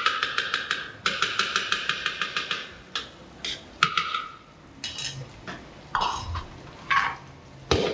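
Kitchen utensils clattering against metal cookware: a quick run of rapid strokes, about eight a second, with a ringing tone, then several separate clinks and knocks.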